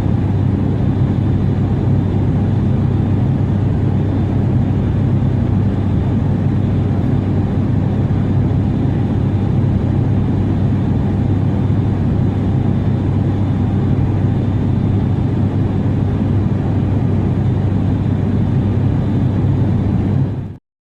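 Airplane cabin noise in flight: a steady low engine drone with a rush of air and a faint high whine, cutting off suddenly near the end.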